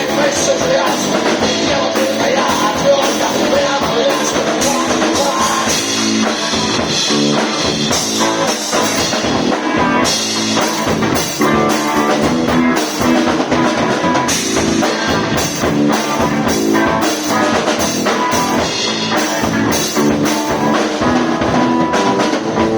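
Rock band playing an instrumental passage with no vocals: drum kit keeping a steady beat under guitar.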